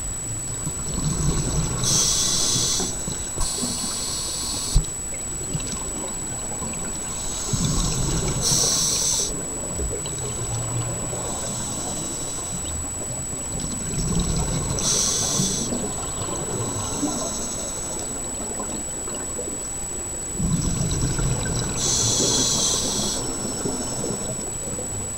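Scuba diver's regulator breathing underwater: a hiss on each inhale and a low gurgling rush of exhaled bubbles, repeating about every six to seven seconds. A thin steady high tone sits behind it.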